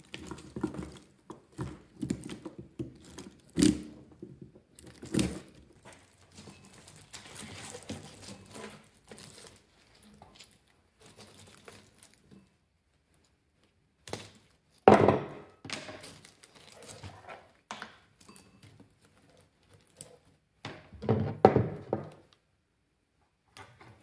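Wire cutters snipping lead wires off an electric motor's copper windings: a series of sharp clicks and snips amid rustling and handling of the copper coil, with heavier thunks about fifteen seconds in and again near the end.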